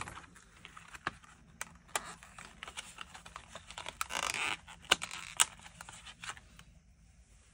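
Thin metal cutting dies and their plastic storage sheet being handled: a series of light clicks and taps, with a short rustling scrape about four seconds in.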